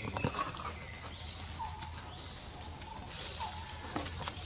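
Outdoor ambience with a steady high-pitched drone and two short animal calls, about a second and a half and three and a half seconds in, with a few brief rustles near the start.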